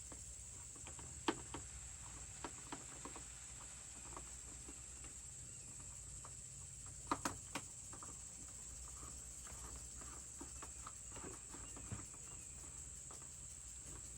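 Scattered light clicks and knocks of plastic feeder ports being handled and fitted into a bucket, with a sharper knock about a second in and a quick cluster of taps about halfway through. A steady high-pitched tone runs underneath.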